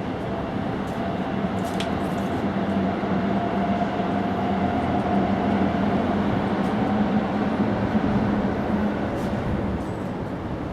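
Steady mechanical rumble with a low hum, growing louder toward the middle and easing off near the end.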